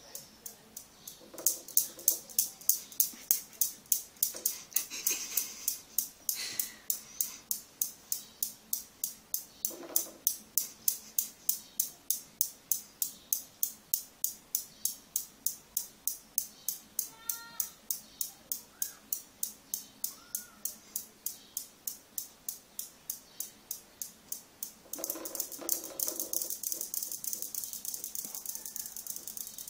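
Steady, regular ticking, about three sharp ticks a second, loudest in the first third and softer afterwards, with a few faint short chirps about two-thirds of the way through.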